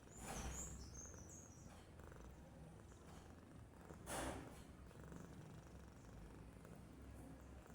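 A resting house cat purring softly, a faint low steady rumble. Two short, louder rushes of breathy hiss come through it, about half a second in and about four seconds in.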